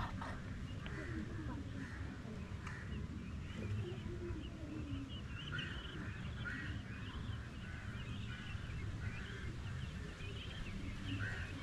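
Birds chirping in many short, high calls over a steady low rumble.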